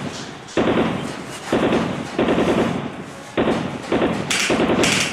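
Dubbed-in automatic gunfire sound effects: a string of short, sudden bursts of rapid shots, about six bursts with brief gaps between them.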